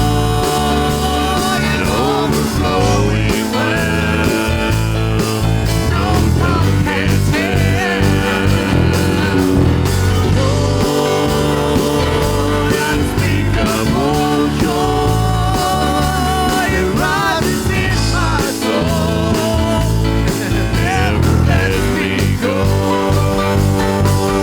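A church praise band playing a worship song, with a steady beat and sustained chords and a wavering melody line over them.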